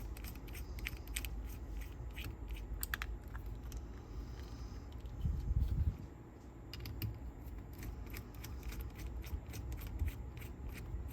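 Screwdriver working out the small screws that hold a cassette deck's capstan base: a run of small, irregular clicks and scrapes of metal on metal, with one duller knock about five and a half seconds in.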